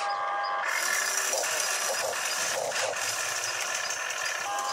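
Radio-controlled hydraulic excavator's electric motor and pump whining steadily in several tones as the boom lifts a loaded bucket and swings it over the dump truck.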